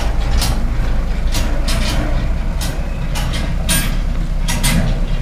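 Dump truck's diesel engine running steadily as the truck pulls away, with about ten short, irregular clatters on top.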